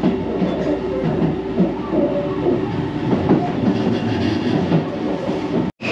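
Seibu 001 series Laview limited express running on the approach to a station, heard from inside the car: a steady running noise of wheels on rails with short wavering tones. It cuts off suddenly near the end.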